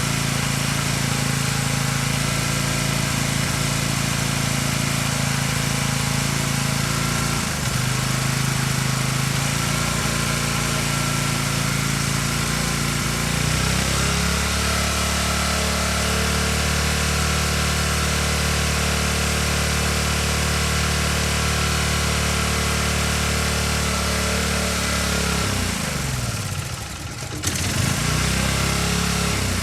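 Small Briggs & Stratton engine on a pressure washer running steadily. Its speed shifts about halfway through, then sags briefly near the end and picks back up.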